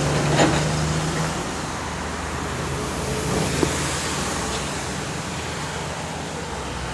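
Road traffic noise, with a vehicle engine hum that fades away about a second in and a couple of small knocks.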